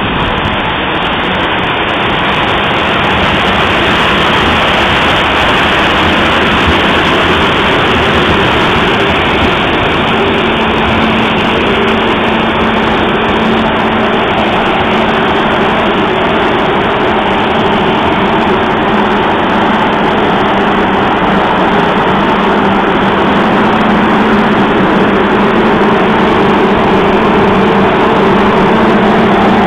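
Grain dryer fans running: a loud, steady rush of air, with a low steady hum that comes in about a third of the way through as the fan housing gets closer.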